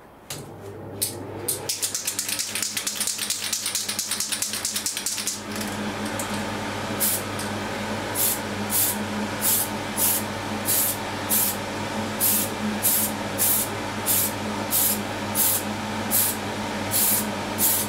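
Small extractor fan humming steadily while an aerosol can of Tamiya PS-59 polycarbonate paint is shaken, its mixing ball rattling rapidly for the first few seconds. From about five seconds in, a steady hiss sets in, broken by short spray bursts, roughly three every two seconds, laying a light first coat.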